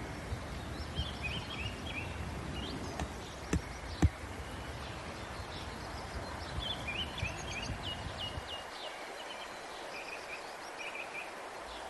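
Outdoor ambience with small birds chirping in short repeated phrases, in two spells, and two sharp knocks about three and a half and four seconds in. A low rumble underneath falls away about two-thirds of the way through.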